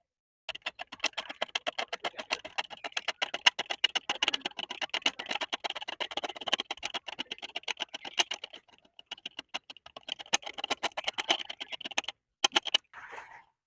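Rapid clicking, about ten sharp clicks a second, that stops about twelve seconds in, followed by a few more clicks and a short rustle.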